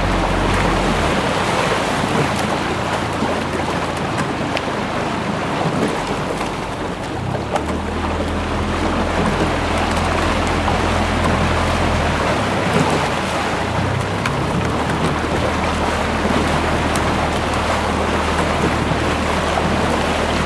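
Wind buffeting the microphone, a low rumble that shifts from gust to gust, over the wash of water around rowing boats under way.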